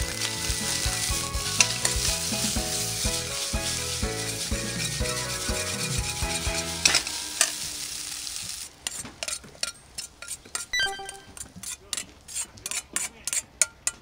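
Fried rice sizzling as it is stirred and tossed with a metal ladle in an iron wok, with background music over the first half. After the music stops about halfway, sharp clinks and scrapes of the ladle against the wok come as the rice is scooped out.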